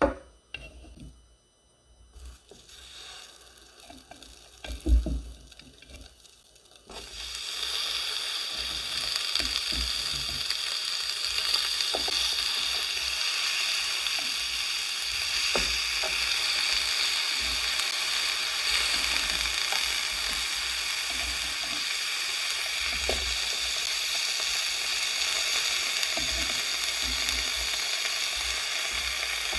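Frozen pork belly slices sizzling in a hot waffle maker: a steady, crackling sizzle that starts suddenly about seven seconds in. Before it come a few quiet knocks and one loud thump.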